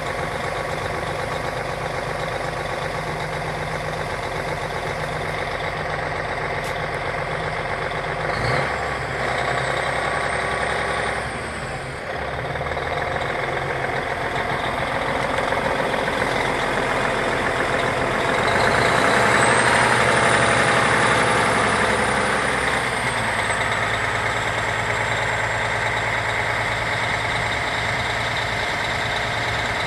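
2006 Peterbilt 379's diesel engine idling steadily. A high whistle comes and goes twice, the second time as the sound swells for a few seconds about two-thirds through.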